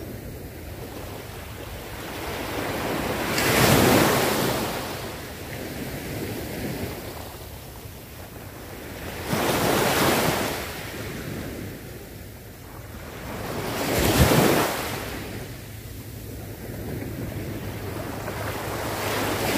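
Small waves breaking and washing up a sandy beach, three louder breaks a few seconds apart over a steady wash of surf, with wind on the microphone.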